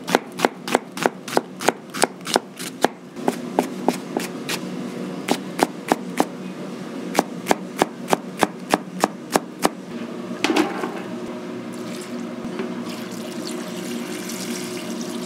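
Chef's knife chopping onion and green onion on a plastic cutting board in runs of quick, even strokes, about three a second, with short pauses, stopping about ten seconds in. Then dark sauce pouring into a stainless steel container over the sliced vegetables.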